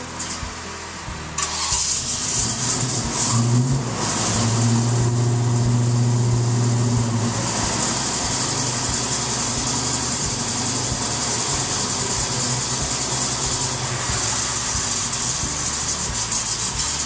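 1996 Ford Thunderbird's 4.6-litre overhead-cam V8 starting up and running steadily at idle, heard from the open engine bay.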